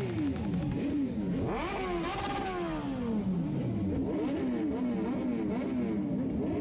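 Several motorcycle engines revving, their pitch climbing and falling in overlapping sweeps, with quick repeated throttle blips in the second half.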